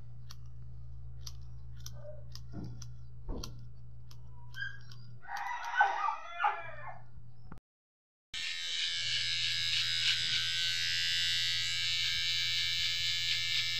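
Electric hair clipper buzzing steadily as it trims close along the side of a head over a comb, starting abruptly about eight seconds in. Before it, a low hum with scattered faint clicks and a short high-pitched call, the loudest sound, about six seconds in.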